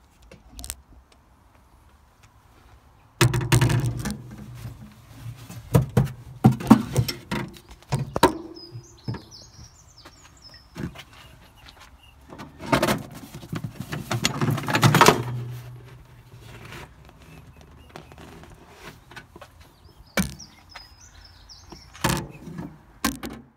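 Handling noise: irregular knocks, thumps and rustles as a hand-held phone is moved around a parked car's front luggage compartment and cabin. The noise is loudest in two stretches, a few seconds in and again in the middle; the engine is not running.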